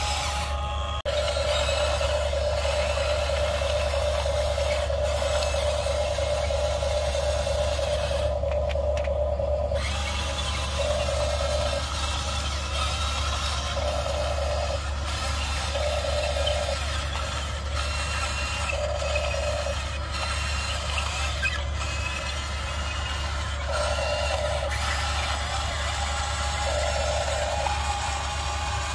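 Small electric motors of Huina RC excavators whining as they work the arm and tracks: a steady whine for several seconds, then short bursts of about a second each, a few seconds apart, over a constant low hum.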